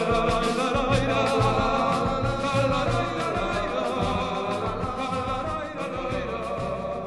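Background music: a Uruguayan carnival-style song in a passage without sung words, with a steady drum beat and bass under melodic lines.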